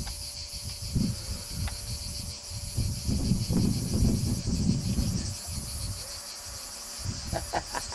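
Chorus of cicadas: a continuous, finely pulsing high buzz, over a low irregular rumble on the microphone that is loudest about halfway through.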